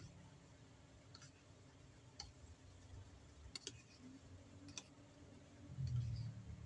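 A metal spoon clicking lightly against a ceramic bowl now and then as oats are stirred, about one click a second, over a low steady hum. A short low rumble about six seconds in is the loudest sound.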